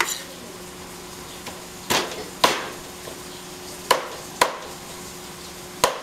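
Chinese cleaver chopping raw chicken on a thick round wooden chopping block. There are six sharp chops, mostly in pairs about half a second apart.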